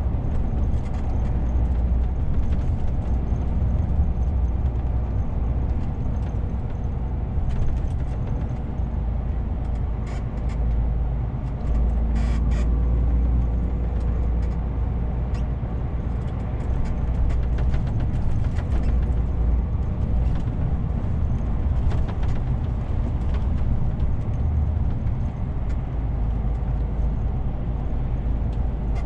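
DAF CF 450 truck's six-cylinder diesel engine and tyre noise heard from inside the cab while driving, a steady low rumble. A few short clicks and a brief hiss about twelve seconds in.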